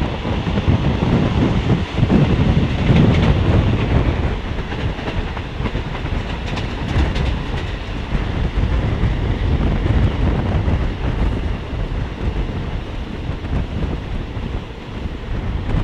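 Passenger train running, heard from a coach window: a steady rumble of the wheels with clacking over the rail joints, loudest a few seconds in.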